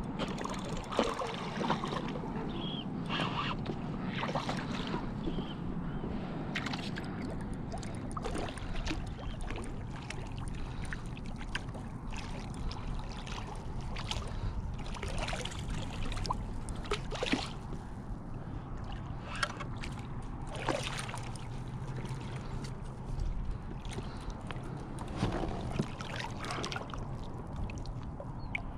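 Water sloshing against a plastic fishing kayak's hull over a steady low rumble. Scattered sharp knocks and splashes come from a hooked redfish thrashing at the surface beside the boat and from handling the gear.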